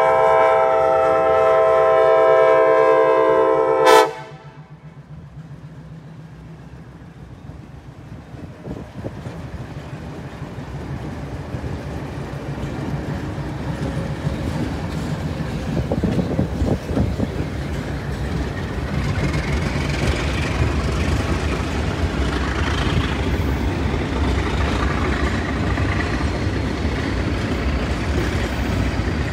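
Diesel locomotive's chord air horn holding a long blast that cuts off about four seconds in, over the engine's low rumble. Then a string of hopper cars rolls past over the grade crossing, wheels clattering on the rail joints, the rolling noise building and staying loud to the end.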